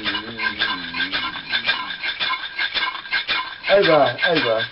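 A hand-held rattle shaken in a quick, even rhythm as a man's sung line fades out about a second in. The rattle stops at about three and a half seconds, and his voice comes in loud with several sharply falling calls.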